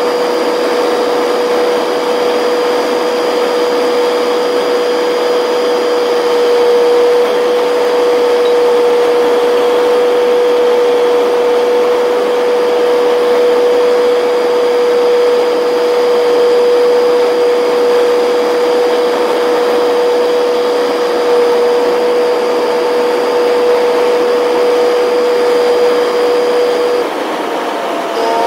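Truck cab noise at highway speed: a steady whine over an even hiss of road and wind. Near the end the noise dips and the whine wavers briefly.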